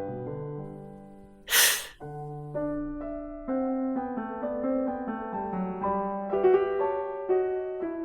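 Gentle piano background music, with a woman's voice giving the phonic sound of the letter F once about a second and a half in: a short, breathy "fff" hiss.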